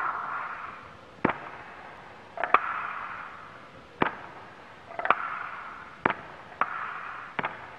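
A series of sharp cracks at irregular intervals, roughly one a second. Several are followed by a short hiss that fades out.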